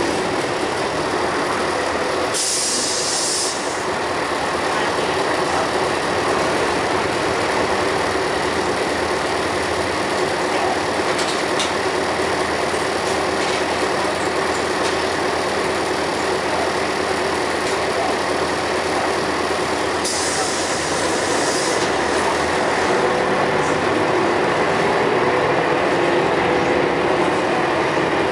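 Scania L113CRL bus running steadily, with two short, loud bursts of compressed-air hiss from its air system, one about two seconds in and another about twenty seconds in.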